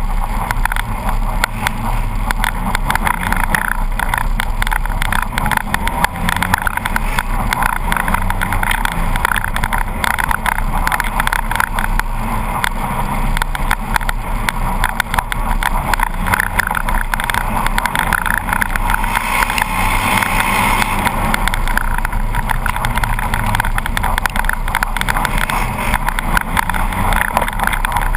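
Polaris RZR 800 side-by-side's twin-cylinder engine running steadily while driving down a rough track, heard close from the hood, with constant rattling and clatter throughout.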